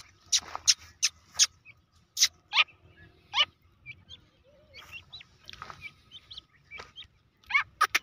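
Young grey francolin giving short, sharp, high-pitched calls, about eight in the first three and a half seconds, then softer little chirps, and a quick run of loud calls again near the end.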